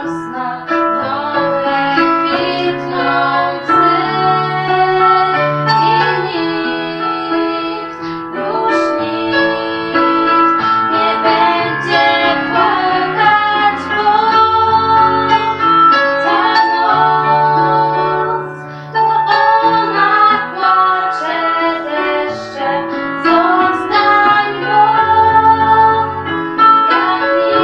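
Two young female voices singing a pop song duet over an instrumental backing track with piano and bass.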